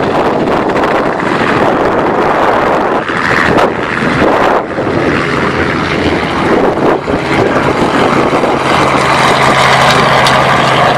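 Robinson R44 Clipper II helicopter in low, close flight: its main rotor and six-cylinder Lycoming piston engine make a loud, continuous roar. About halfway through, a steady low hum with two level tones comes in under it.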